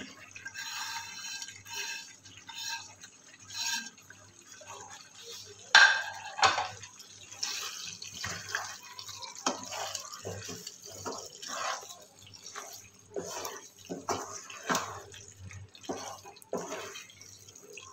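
Wooden spatula stirring chicken and thick masala in a non-stick wok, making irregular scrapes and knocks against the pan over a light sizzle of frying.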